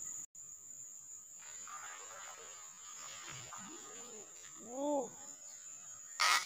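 Spinning reel being cranked, its worn internal gears making a rough grinding, over a steady high insect drone. Two short rising-and-falling tones come about four and five seconds in, and a few sharp clicks near the end are the loudest sounds.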